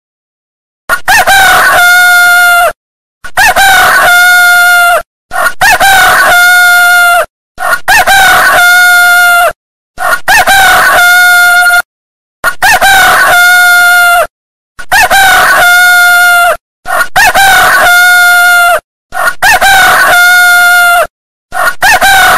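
A rooster crowing cock-a-doodle-doo about ten times, one crow roughly every two seconds with a short silence between. Every crow has the same shape, a brief rise and then a held level note, so it is one crow repeated.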